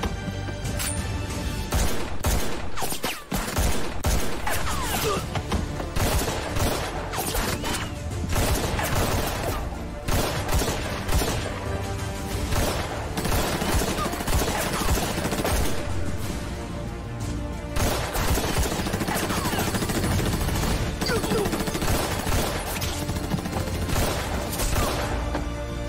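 Sustained exchange of gunfire in a film gunfight: many rapid shots, some in quick bursts, over dramatic background music.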